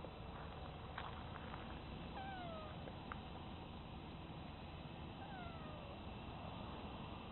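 A cat meowing twice, about three seconds apart, each meow falling in pitch.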